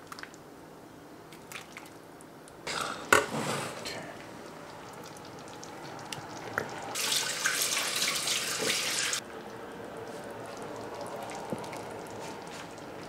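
Kitchen tap running in a short gush of about two seconds, then shut off suddenly. A brief clatter with a sharp knock comes about three seconds in.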